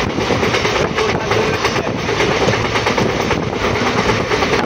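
Express train running at speed, its wheels clattering over rail joints under a steady rumble, heard from on board a sleeper-class coach.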